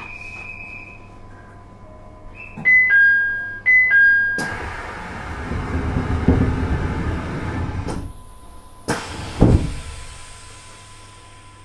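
Two-note electronic door chime of a JR East E721-series electric train sounding twice, then the doors sliding shut with a rush of noise and closing with two thumps, signalling the train is about to depart. A faint steady electrical hum from the train runs underneath.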